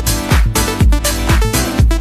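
Background music: an electronic dance track with a steady kick drum, about two beats a second.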